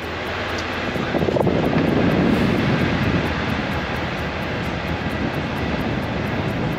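Steady rushing and buffeting air from an electric fan blowing close by, swelling about a second in.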